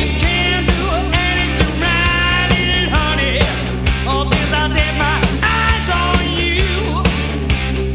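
Rock music with a steady drum beat and a melody over it.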